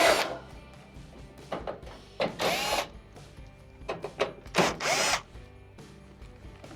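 Cordless drill/driver spinning out the 1/4-inch hex screws that hold an oven's rear panel, in several short bursts with the motor speeding up and slowing down.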